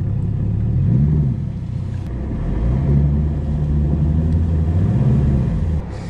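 Bass boat outboard motor running under throttle, its pitch rising about a second in, rising again and holding, then dropping back just before the end.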